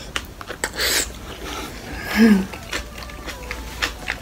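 Close-up eating sounds of a person chewing soft beef and rice porridge with her mouth closed: small wet mouth clicks throughout, a short rushing noise about a second in, and a brief hummed 'mm' about two seconds in, the loudest sound.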